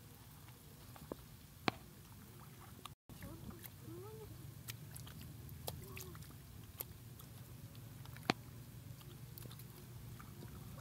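Bare hands digging and scooping in wet mud: soft wet squelching with scattered sharp clicks and ticks of clods and small stones.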